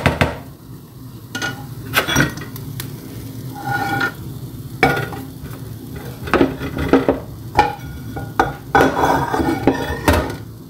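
A spatula scraping and knocking against a frying pan and a wire-mesh strainer, with irregular metallic clanks and clinks as just-fried onions are scraped out of the hot pan into the strainer. A denser run of clattering comes near the end.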